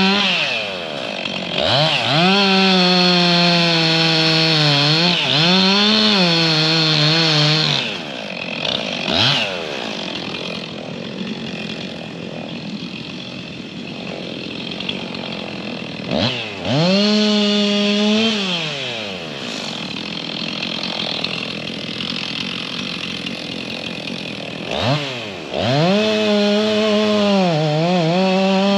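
Two-stroke chainsaw revved to full throttle three times, dropping back to idle in between, with the engine pitch sagging and wavering under load as it cuts into a tree.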